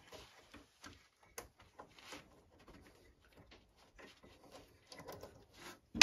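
Near silence broken by faint scattered clicks and light taps of fingers working plastic fittings inside a boiler casing, easing out the old water pressure sensor.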